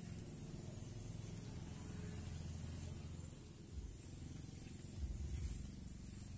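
Outdoor ambience: a steady high-pitched insect drone, with a low rumble underneath and a few thumps about five seconds in.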